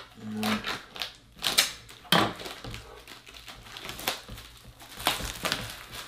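Clear plastic bag crinkling and rustling as it is cut with a knife and pulled off a garage door opener's motor unit, in irregular crackles with a few louder rips.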